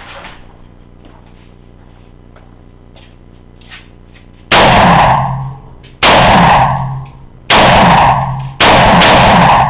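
Four single shots from a 5.56 mm M16 rifle fired one at a time, about a second and a half apart. Each shot is very loud, is clipped by the microphone, and echoes for most of a second.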